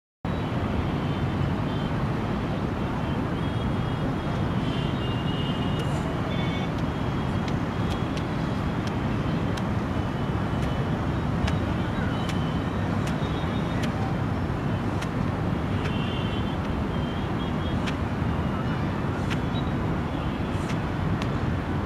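Steady low rumbling outdoor background noise, with scattered faint high chirps and ticks.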